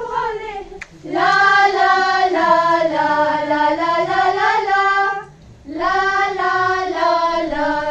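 Group of young women singing together in unison, in phrases of long held notes, with short breaks for breath about a second in and about five seconds in.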